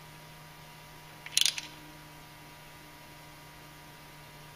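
Stubby 3/8-inch ratchet clicking in one quick run of a few clicks about a second and a half in, as the bolt holding the front ABS wheel speed sensor is snugged down. A steady low hum underneath.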